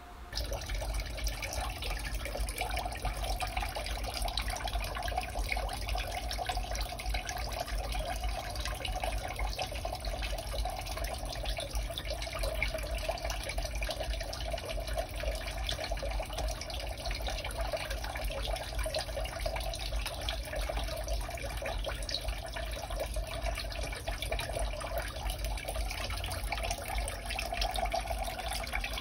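Alpine two-tier barrel waterfall fountain running: water pours from the hand-pump-style spout and splashes steadily down into the barrel tiers, starting abruptly just after the opening.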